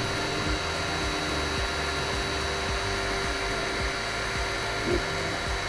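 Eryone Thinker SE 3D printer printing its first layer: the hot-end cooling fan runs steadily, with quiet stepper-motor tones that shift in pitch as the print head moves. Its Trinamic 2208 stepper drivers keep the motors quiet, and the part cooling fan is not yet running.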